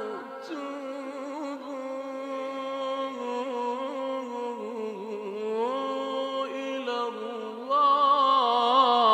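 A man's voice reciting the Quran in maqam Kurd, holding long drawn-out notes with melismatic ornaments; it swells louder and brighter about three-quarters of the way through.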